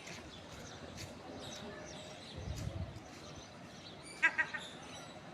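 Chickens squawking: a quick run of three short, loud, high-pitched calls about four seconds in, over a steady market din. There is a brief low rumble about halfway through.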